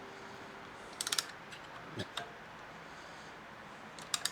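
Socket ratchet clicking in short bursts of quick clicks, about a second in and again near the end, with a single knock around two seconds, as it winds a spring compressor down on a motorcycle shock spring.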